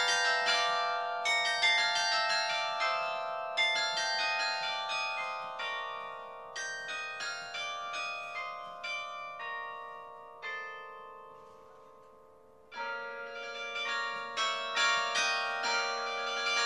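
Carillon bells played from the baton keyboard: a slow melody of bell notes, each ringing on long after it is struck. The phrase dies away around ten seconds in, and after a short pause a new phrase starts about thirteen seconds in, adding a lower bell.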